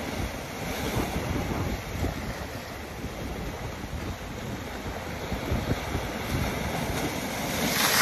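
Rough sea waves breaking and washing over the rocks of a stony shore, with gusting wind buffeting the microphone. A bigger wave crashes and hisses louder near the end.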